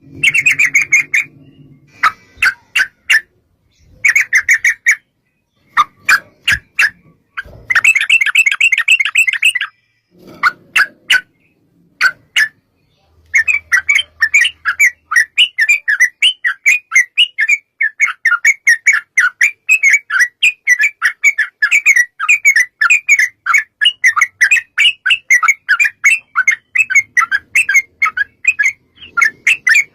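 Yellow-vented bulbul (trucukan) calling: short bursts of quick bubbly chirps with pauses, then from about 13 s in a long unbroken run of rapid chattering notes, the long 'ropel' song.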